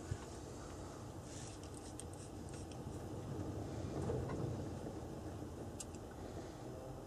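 Quiet handling sounds of a steel digital caliper being slid open and set against a wooden rifle stock, with a few light clicks, over a low steady hum.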